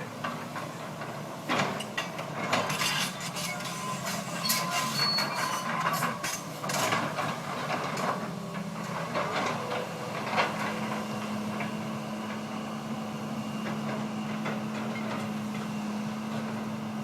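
Irregular knocks and clattering, like wood being struck and handled, then from about ten seconds in a steady low engine hum.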